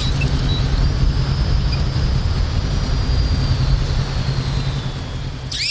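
DJI Avata FPV drone in flight: a steady low rumble with a faint high motor whine that slowly falls in pitch. Near the end the rumble drops away and a louder, higher whine starts.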